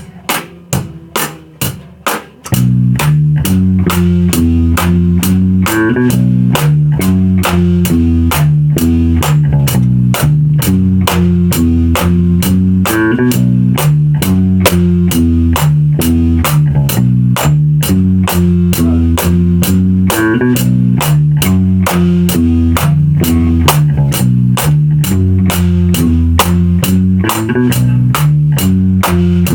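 A drum kit plays a steady beat alone. About two and a half seconds in, a loud bass and guitar riff joins it, a looped figure that repeats about every seven seconds over the drums.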